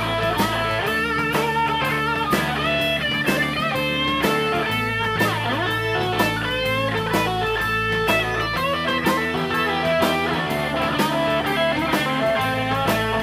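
Live blues band playing an instrumental passage: electric guitars and a drum kit keep a steady beat under a bending lead line, with harmonica cupped to the vocal mic.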